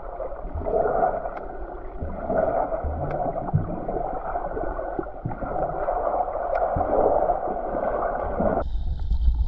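Muffled underwater sound picked up by a GoPro in its waterproof housing: water gurgling and swishing around the camera, swelling unevenly, with a few dull low knocks. Near the end it cuts abruptly to a different, rumbling sound.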